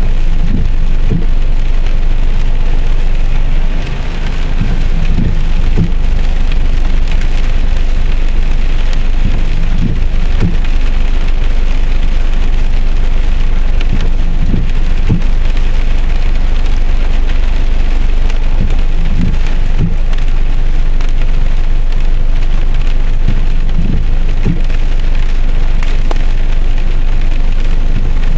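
Heavy rain pattering on a car's windshield and body, heard from inside the car, with a steady low rumble. The windshield wiper sweeps across the glass, with short low thuds, often in pairs, about every four to five seconds.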